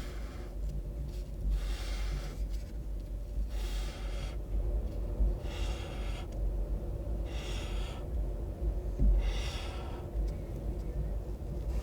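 Pink highlighter felt tip swiped across paper in separate strokes, about five of them, each under a second and roughly two seconds apart, each a scratchy hiss.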